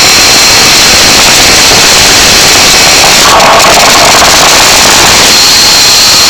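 A huge stadium crowd cheering and yelling, so loud that the microphone overloads into a harsh, distorted roar.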